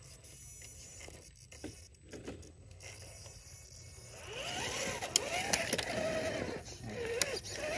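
Scale RC crawler trucks' electric motors and gear drivetrains whining as they climb, the pitch rising and falling with the throttle, getting louder about four seconds in, with a few sharp clicks over the top; the first part is quieter with scattered ticks.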